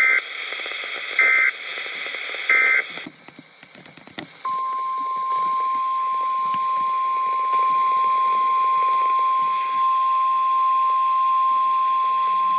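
Weather radio broadcast: three short SAME digital data bursts, each a brief two-tone warble, close the test message. After a few clicks and a moment of faint static, the steady 1050 Hz NOAA Weather Radio warning alarm tone begins about four and a half seconds in and holds unbroken.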